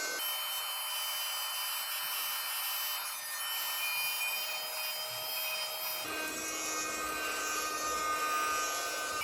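Small battery vacuum cleaner running: a steady airflow hiss with several high, steady motor tones. The sound cuts to a slightly different pitch about six seconds in.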